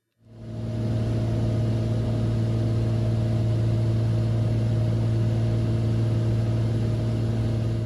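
Cessna 182's piston engine and propeller in cruise, heard as a steady, loud drone inside the cabin. It fades in over about the first second and begins fading out near the end.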